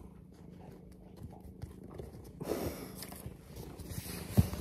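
Domestic cat purring close to the microphone while it rubs against a person, with rustling of fur and clothing from about halfway and a couple of soft thumps near the end.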